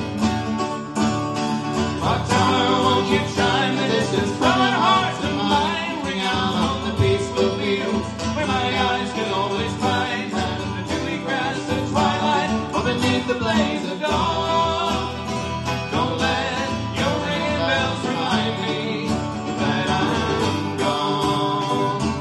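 Banjo and acoustic guitar playing an instrumental break in a folk song, with a harmonica carrying the melody over them.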